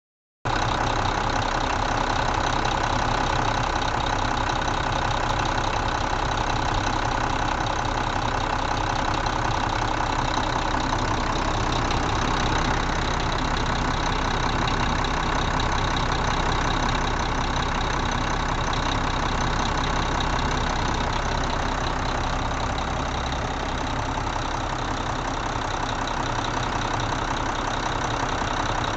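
The diesel engine of a 1999 Mack RD688S truck idling steadily, heard close up in the open engine bay. The sound comes in about half a second in and holds an even pitch and level throughout, with no revving.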